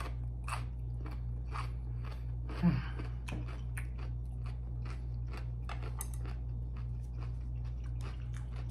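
Close-miked crunchy chewing of pickled yellow radish (takuan): a run of crisp crunches, roughly two a second. A short vocal hum comes in about two and a half seconds in.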